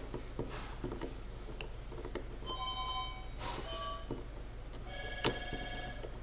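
Steel tweezers picking at the small parts of a disassembled EVVA MCS lock cylinder: scattered light metallic clicks and taps, with one sharper click about five seconds in. Short ringing tones of a few held pitches sound around three seconds in and again around five seconds in, each under a second long.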